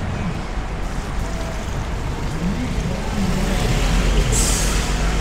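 Traffic on a wet city street: a black taxi cab passes close by, its engine running and tyres hissing on the wet road, over a steady rumble of traffic and crowd chatter. A brief sharp hiss comes about four seconds in.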